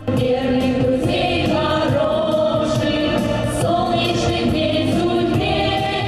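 A women's vocal ensemble singing together into handheld microphones, several voices in harmony on long held notes.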